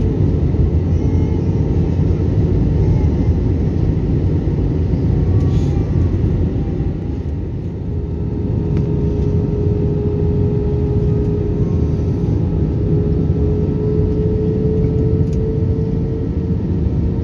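Airplane cabin noise in flight: a loud, steady rumble of engines and airflow with a hum held at one pitch, easing briefly about seven seconds in.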